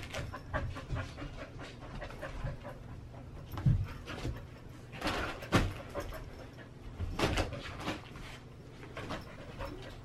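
A dog panting hard in irregular breaths during rough play, a few of them louder.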